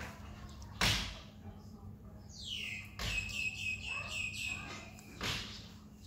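High chirping animal call: a squeal falling in pitch, then a quick run of about eight squeaks at one high pitch, about four a second. A loud rustling thump comes about a second in, and a softer one near the end.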